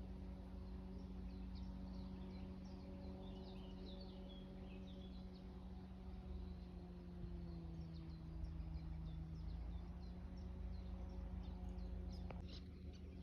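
Small birds chirping in quick short calls, busiest in the first half, over a steady low machine-like hum that dips slightly in pitch in the middle and then returns.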